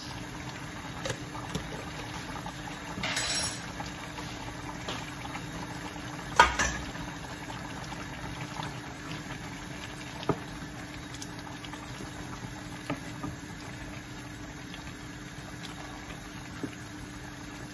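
A pot of Nigerian vegetable soup with palm oil bubbling steadily on a gas burner. A few short knocks and clicks sound over it, the loudest about six seconds in.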